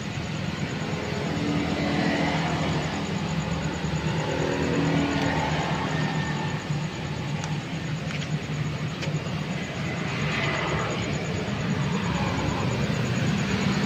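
Steady low background rumble, with a few faint clicks about seven to nine seconds in.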